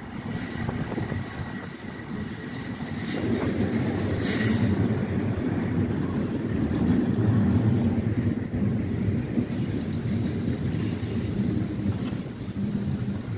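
LIRR M7 electric passenger train passing at close range: a steady rumble of wheels on the rails that swells to its loudest midway, with a brief sharp high noise about four seconds in.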